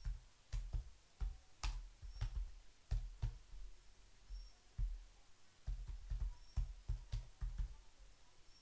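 Computer keyboard typing: irregular key clicks, each with a dull thump, in quick runs with short pauses between.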